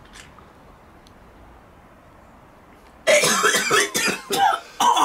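A man coughing and spluttering hard, starting suddenly about three seconds in after a quiet stretch.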